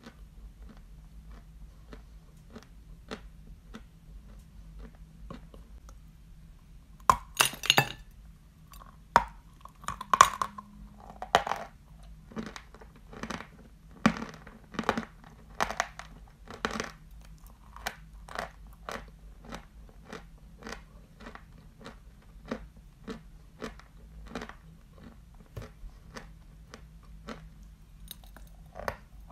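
Close-miked chewing of lump Barsuk (Badger) natural chalk: a cluster of loud crunchy bites about seven seconds in, then steady crunching chews about twice a second.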